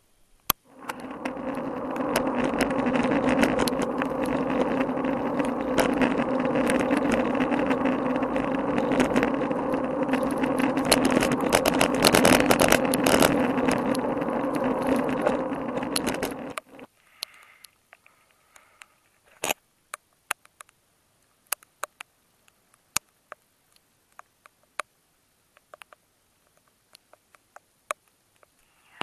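Muffled, steady rolling rumble of a road bike on a wet road, heard from a camera sealed in a waterproof case, with many sharp ticks of raindrops and vibration on the case. It starts about a second in and cuts off suddenly after about sixteen seconds, leaving only scattered ticks.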